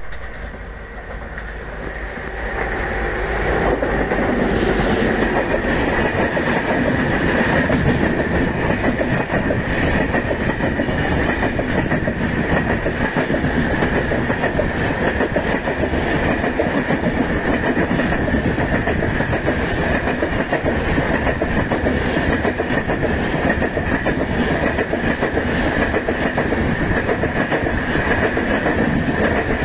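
An electric-hauled Indian Railways express of red LHB coaches approaching and running close past at speed: a dense clatter of wheels on the rails, with a constant high ringing tone. It grows louder over the first few seconds as the train arrives, then holds steady as the coaches stream by.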